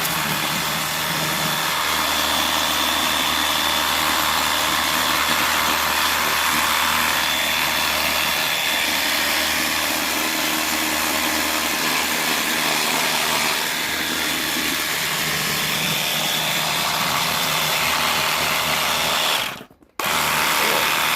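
Pressure washer running steadily and spraying, with a faint high whine over the rush of the spray. It cuts out briefly near the end, then starts again.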